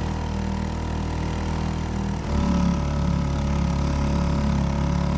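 Small outboard motor pushing an inflatable dinghy, running steadily. About two seconds in it gets louder and its tone shifts.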